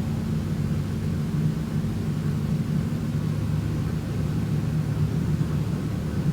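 A steady low drone: a constant rumble with a few steady low tones, no rise and fall of breathing.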